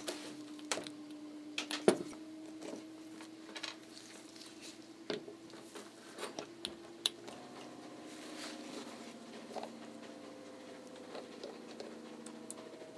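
Scattered light clicks and clacks of a hand pump grease gun being worked against the axleboxes of a 5-inch gauge riding trolley's bogie, forcing grease into the needle roller bearings, over a steady low hum.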